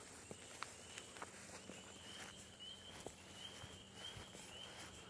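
Footsteps through grass, with a steady run of faint high chirps repeating about every half second from about two seconds in.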